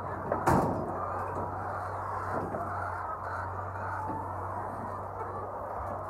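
A large flock of white laying hens clucking and calling together in a dense, continuous din, over a steady low hum. A sharp knock sounds about half a second in.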